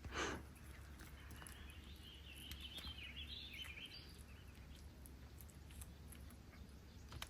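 Quiet lakeside background with a faint low rumble, and a bird chirping faintly for a couple of seconds, starting about a second and a half in.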